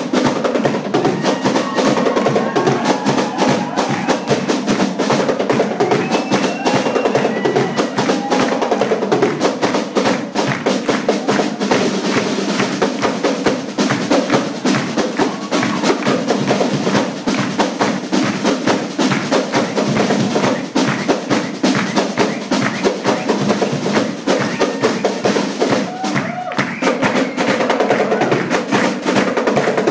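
A drum group playing a fast, driving drum routine, with dense rapid strokes throughout.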